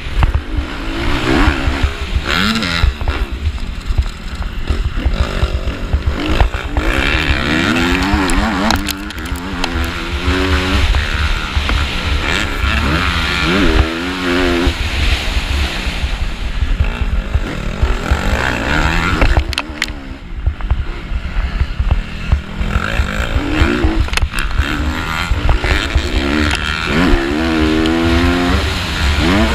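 Motocross bike engine revving up hard and dropping back again and again as the rider accelerates out of turns and shifts through the gears, with heavy wind buffeting on the helmet-mounted microphone.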